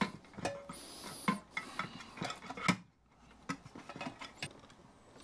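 Irregular clicks, knocks and rubbing as a DC-to-DC converter and its wire leads are handled and pressed down into a compressor chassis.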